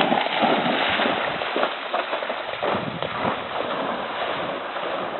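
Water splashing and sloshing as a dog wades through shallow floodwater, with wind noise on the microphone.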